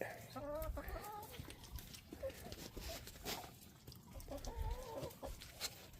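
Chickens clucking softly: a few short calls about half a second in and again near the end, with light scattered clicks between.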